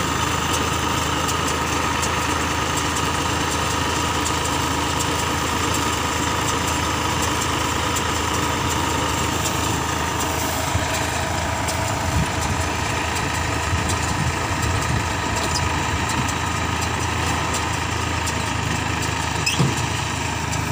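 New Holland 4710 diesel tractor running steadily while driving a round baler, engine and baler drive making one continuous mechanical drone. A few light knocks come in the second half.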